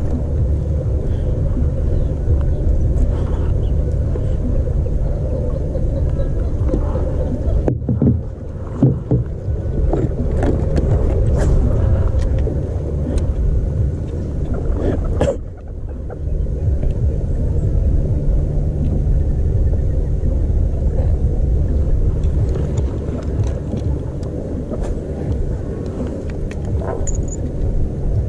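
A steady low rumble that drops out briefly about a third of the way in and again just past halfway. Light clicks and knocks are scattered through the middle.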